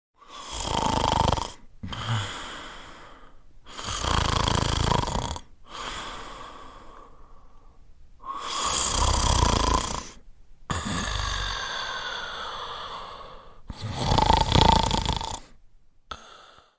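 Snoring in a steady breathing rhythm: four loud snores about four to five seconds apart, each followed by a quieter, longer out-breath.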